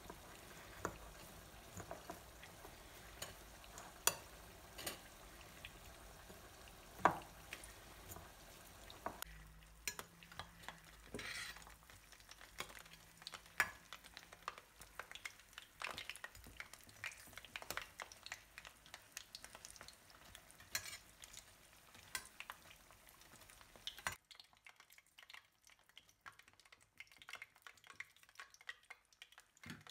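A spoon stirring and clinking in a bowl of chopped vegetable filling, then, about nine seconds in, batter-coated green chilli fritters frying in hot oil in a stainless steel pan with a light sizzle and crackle, a slotted spoon clicking against the pan as they are turned. The sizzle grows quieter for the last few seconds.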